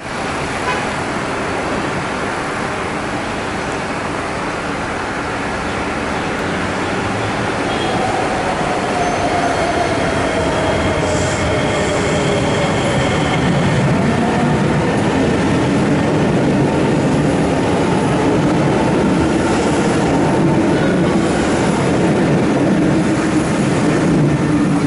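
A C751B electric metro train pulls away from the platform and accelerates, its running noise growing gradually louder. About a third of the way in, a whine falls in pitch. A lower hum then climbs slowly as the train gathers speed and passes out of the station.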